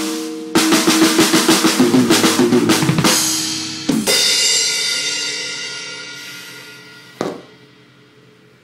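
Drum kit played: a fast run of drum strokes, about six a second, for roughly two and a half seconds, then a loud crash that rings on and slowly fades, with one more single hit later before the sound dies away.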